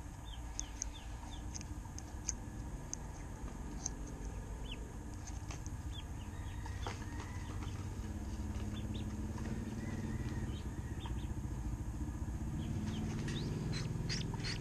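Ducklings peeping: many short, high, falling peeps scattered throughout. Under them a low engine rumble grows louder in the second half.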